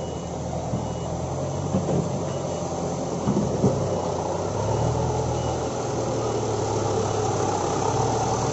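Heavy diesel engine of earthmoving equipment running steadily, with a few short knocks about two and three and a half seconds in.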